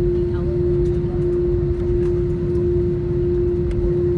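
Cabin noise of an Airbus A321 taxiing: a steady, unbroken engine hum over a low rumble from the airframe and wheels rolling on the taxiway.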